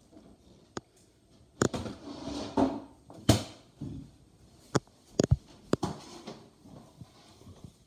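Spoon clinking and scraping in a stainless-steel saucepan of chili and cut-up hot dogs as they are stirred together. Several sharp knocks come at irregular intervals, a few of them close together past the middle, with short scraping sounds between.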